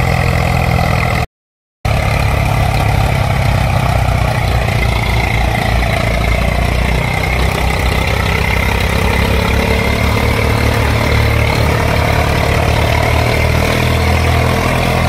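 Tractor diesel engine sound running steadily with a low, even throb. It drops out to silence for about half a second a little over a second in, then carries on.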